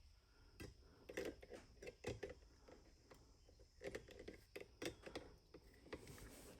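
Faint, scattered clicks and taps of hand-work on a small 25cc two-stroke chainsaw while its engine is turned over by hand to bring the piston up against a cord stuffed into the cylinder, a piston stop for removing the clutch.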